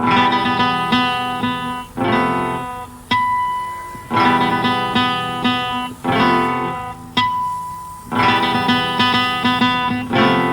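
Guitar music: plucked and strummed chords in short phrases that start about every two seconds, each ringing out and fading before the next.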